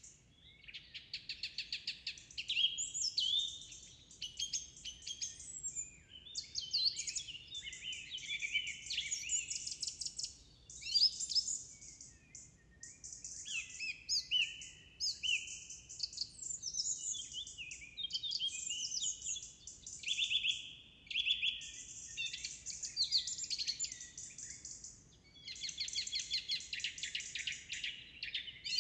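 Songbirds singing almost without pause: rapid trills and clear whistled phrases, one after another, broken only by a few short gaps.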